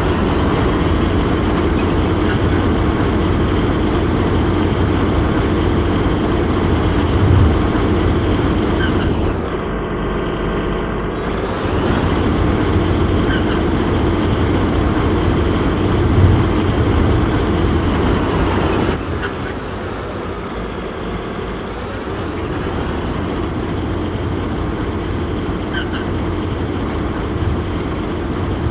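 Excavator engine running steadily under work, with a short dip in the noise about ten seconds in and a slightly lower level in the last third.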